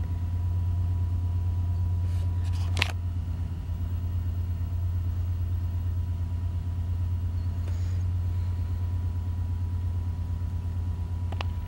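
A steady low hum with a faint steady high tone above it, broken by a short rustle and sharp click about three seconds in and another click at the very end.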